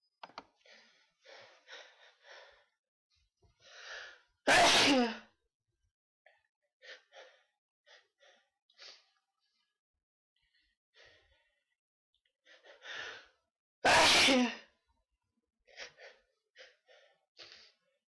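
A person sneezing twice, about nine seconds apart. Each loud sneeze comes after a run of short, catching in-breaths, and a few quick breaths follow each one.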